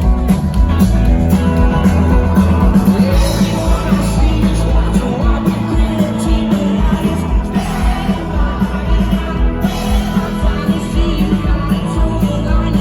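Live rock band playing an up-tempo song, with a steady drum beat, guitars and bass, and a voice singing over it.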